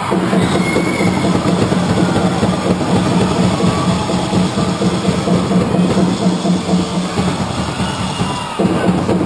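Spectators' noise in a sports hall: a loud, dense clatter of drumming and clapping over a steady low drone. It starts abruptly and thins out shortly before the end.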